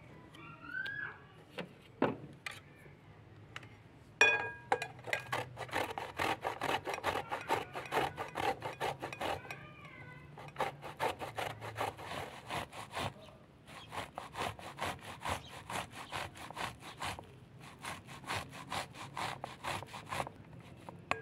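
A peeled eggplant grated on a metal box grater: rhythmic rasping strokes, about three a second, in four runs with short pauses, starting about four seconds in. Before that, a couple of knife clicks while peeling and a few short rising calls.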